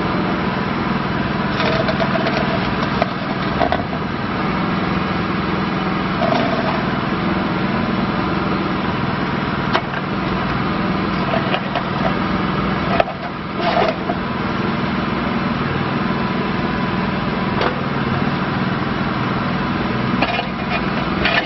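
IHI IS7GX mini excavator's diesel engine running steadily, with a few sharp knocks and clanks from the working machine.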